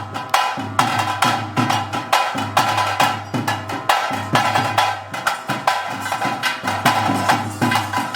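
Traditional bhoota kola ritual music: drums beating a fast, steady rhythm under a sustained melody from a reed pipe.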